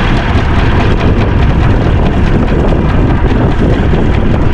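Wind buffeting the microphone in a steady rumble, over water splashing as a fishing net is hauled up over the side of a boat.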